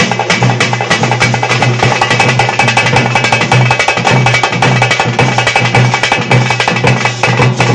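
Thappattam ensemble of parai frame drums beaten with sticks, backed by a large bass drum and a barrel drum, playing a fast, dense, unbroken rhythm.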